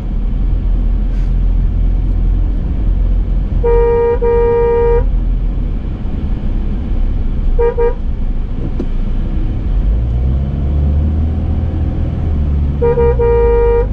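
Car horn honking in a one-note blast: one long honk about four seconds in, two quick toots about eight seconds in, and another long honk near the end. Under it runs the steady engine and road noise of a moving car, heard from inside the cabin.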